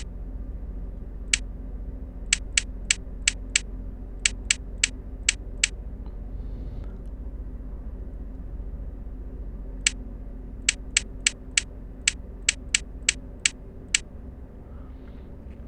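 Short, sharp clicks of keno spots being marked one at a time on a multi-card keno game: a run of about eleven clicks, a pause of about four seconds, then another run of about eleven. A steady low hum lies underneath.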